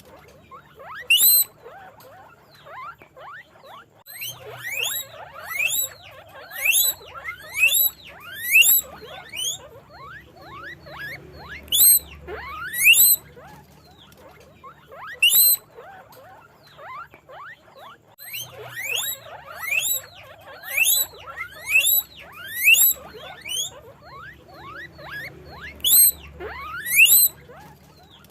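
Guinea pigs squeaking: repeated short, high squeals that sweep upward in pitch, coming in bursts of a few calls with short pauses between.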